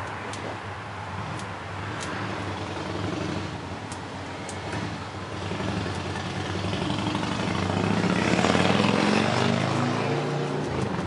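A motor vehicle going past, its low engine hum and road noise building to its loudest about eight seconds in, then falling away just before the end.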